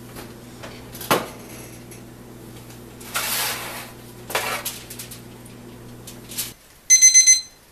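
A digital probe thermometer's timer alarm beeps, a rapid group of about four sharp electronic beeps near the end, signalling that its 15-minute timer is up. Before that, a metal baking sheet clatters and scrapes as it goes into the oven.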